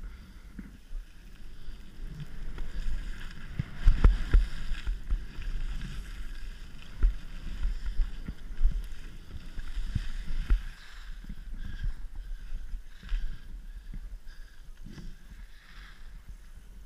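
Skis hissing and scraping over packed piste snow as the skier makes turns, over a low rumble of wind on the microphone. The scraping swells to louder gusts about four seconds in and again for a few seconds past the middle.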